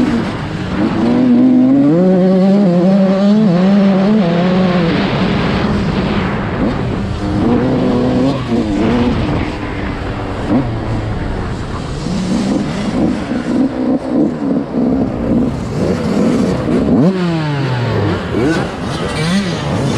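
A 125cc dirt bike engine heard from the rider's helmet camera, revving up and down again and again as the throttle opens and closes around the track. About 17 seconds in, the pitch drops in one long fall as the engine winds down.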